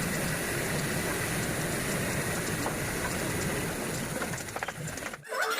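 Steady, noisy running of a woodworking power tool working timber, cutting off abruptly about five seconds in, when music begins.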